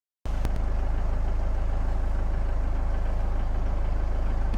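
Engine idling: a steady low rumble that starts abruptly just after the opening silence and holds an even level.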